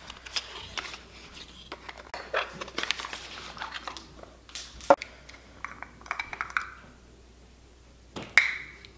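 Cardboard and plastic packaging of a skincare product being handled and opened, giving irregular crinkling, scraping and small clicks. A louder sharp scrape-click comes near the end as the plastic lid comes off the cream jar.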